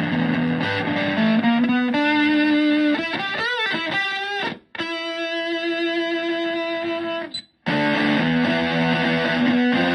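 Humbucker electric guitar played through a Zonk Machine fuzz pedal into a Fender Twin–style valve amp. It plays chords, then a few bent notes with wavering pitch, then one long sustained note that cuts off suddenly after about seven seconds, and then chords again.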